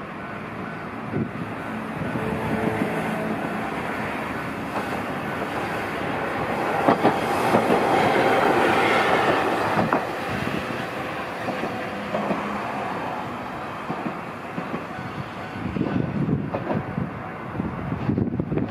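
Hankai Tramway 701-series tram running past on its rails, growing louder as it nears and loudest around eight to ten seconds in, with a couple of sharp clicks from the wheels, then fading as it moves off.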